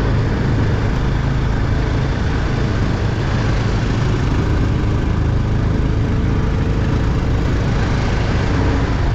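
A vehicle's engine running steadily while driving over a rough motor track, with a constant low rumble and an even rush of road and wind noise.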